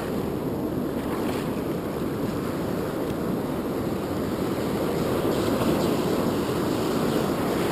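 Ocean surf washing steadily around the shoreline, with wind noise on the microphone.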